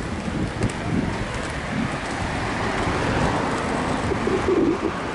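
Roller skate wheels rolling over a rough road surface: a steady rumbling noise with irregular low bumps.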